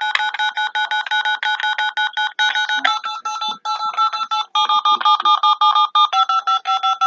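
Electronic caller tune coming down a phone line while a call connects: rapid, evenly spaced beeping notes, about seven a second, that shift to a new pitch every second or two.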